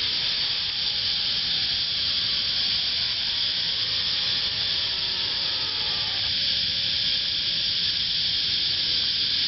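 Steady background hiss with no distinct event in it.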